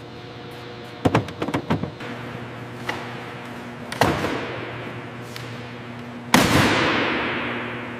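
A steady hum under a series of sharp knocks: a quick cluster of them about a second in, a single knock near three seconds, a heavier impact at four seconds, and a loud impact around six seconds followed by a hiss that fades away over the next two seconds.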